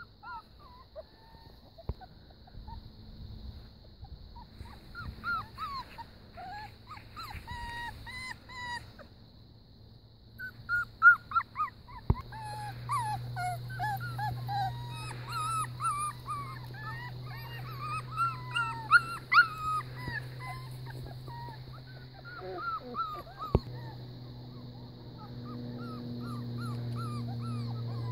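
Young puppies whimpering and yipping in many short, high whines, coming thickest through the middle stretch, over a faint steady low hum.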